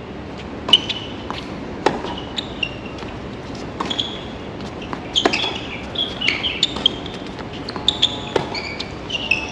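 Tennis rally on a hard court: sharp pops of the ball off racket strings and the court, the loudest about a second in, near two seconds, a little past five seconds and past eight seconds, with short high shoe squeaks in between.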